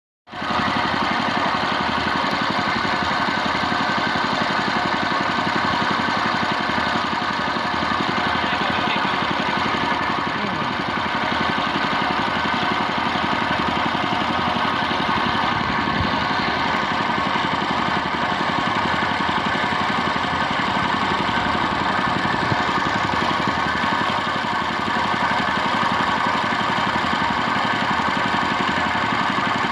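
Boat engine running steadily at an even pitch, unchanging throughout.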